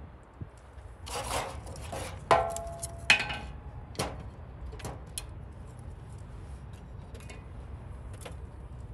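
Wooden kindling sticks being stacked into a steel-wheel wood stove's firebox: a few knocks and scrapes of wood on wood and against the steel in the first half, two of them ringing briefly. After that, only scattered small clicks.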